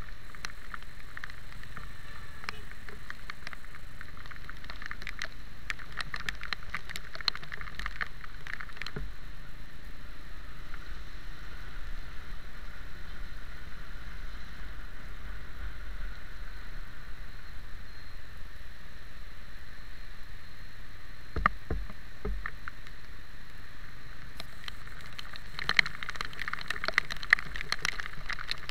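Raindrops ticking and pattering on a motorcycle-mounted camera over a steady hiss of riding in rain. The pattering comes in denser clusters about a quarter of the way in and again near the end.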